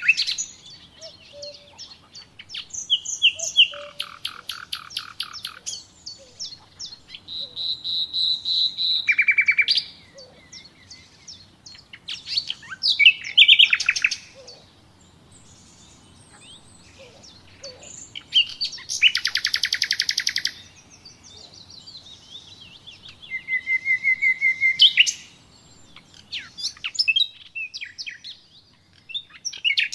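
A small songbird singing a varied song of fast trills and rattling rolls, in phrases of one to two seconds with short pauses between them.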